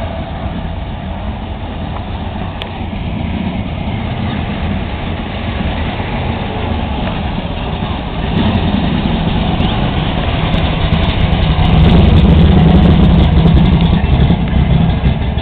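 Classic cars' engines running as they drive slowly past in a line. About eight seconds in it grows louder as a second-generation Chevrolet Camaro with a supercharged V8 standing up out of its engine bay pulls past close by, loudest near the end.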